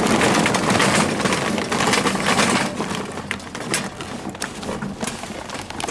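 Charcoal clattering and rattling in a charcoal chimney as it is filled and shifted. A dense run of clicks and knocks thins out after about three seconds.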